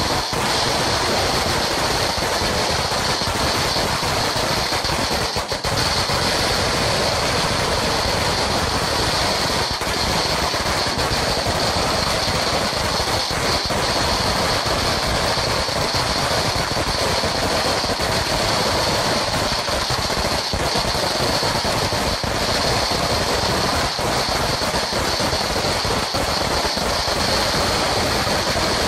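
A Sinturon ni Hudas, a long belt-like string of small firecrackers, going off in a dense, unbroken crackle of rapid bangs at a steady loudness.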